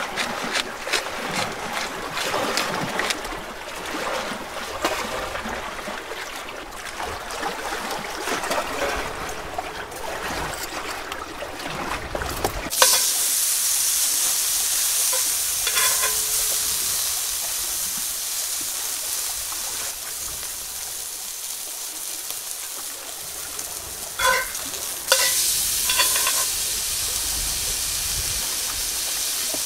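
Aged Angus ribeye steak dropped into a hot Lodge cast-iron skillet about halfway through and frying with a steady high sizzle, with a few metal clinks of tongs on the pan. The sizzle gets louder a few seconds before the end as the steak is turned. Before the steak goes in, irregular crackling and clicks.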